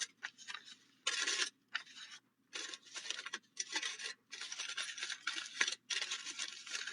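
A sheet of aluminum foil being crumpled by hand, crinkling in irregular bursts with short pauses between them.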